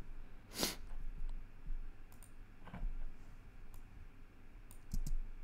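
A handful of scattered clicks from a computer mouse and keyboard, one louder click about half a second in, the rest faint, while volume faders are grouped in a Pro Tools session.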